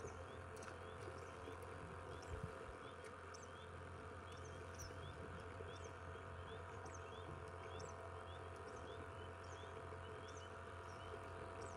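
Frogs calling in a faint chorus of short, high, rising peeps that repeat about twice a second, over a steady low hum.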